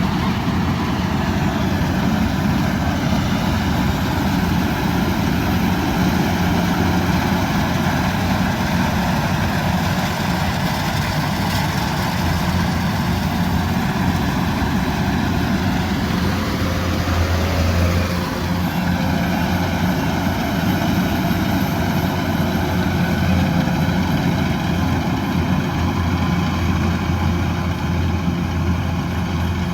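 Combine harvester's diesel engine running steadily under load, with a brief falling whine about two-thirds of the way through.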